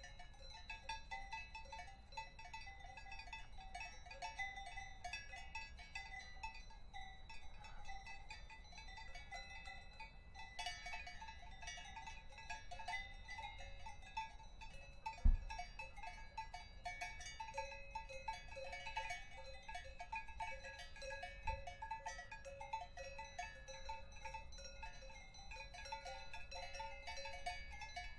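Many cowbells clanking and ringing irregularly and without pause, their tones overlapping. A single dull thump stands out about halfway through.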